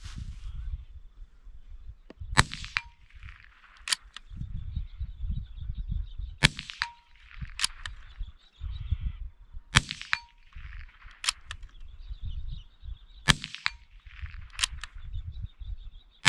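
Rifle shots at steel targets, four in all, about three and a half seconds apart. Each shot is followed by a brief metallic ring and, a second or so later, a second sharp crack.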